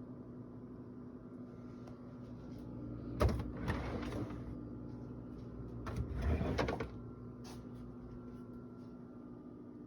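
Two short sliding, rubbing sounds, each about a second long and about three seconds apart, over a steady low hum.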